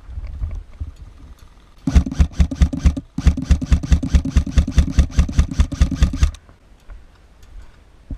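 Airsoft electric rifle firing two bursts, a short one about two seconds in and a longer one right after, each a fast even string of shots at about eight a second.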